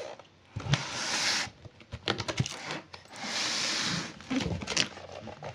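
Hands handling packaging and parts: scattered light clicks and knocks, and two rustling sounds about a second long.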